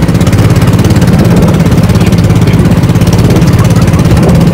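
Small motorboat's engine running steadily under way, a loud even drone with a fast pulsing beat, over the hiss of wind and water.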